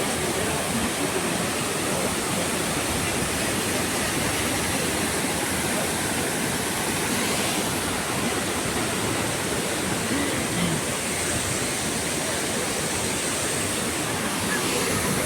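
Waterfall's falling water rushing steadily, an even, unbroken noise.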